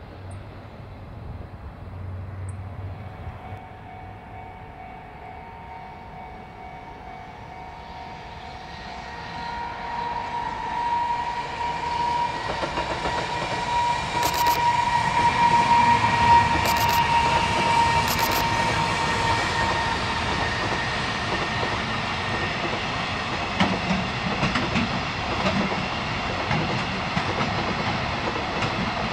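Electric-hauled JR Freight train approaching and passing close by, growing louder over several seconds and then running on steadily as the wagons go by, with wheels clattering over the rails and a few sharp clicks in the middle.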